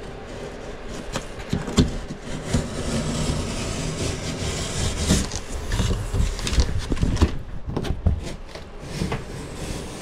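Utility knife slicing through corrugated cardboard packaging, with the cardboard scraping and rustling and several sharp knocks.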